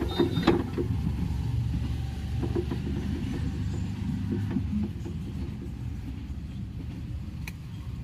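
An engine running steadily with a low rumble, easing slightly about five seconds in. A few sharp clicks come at the start and one near the end.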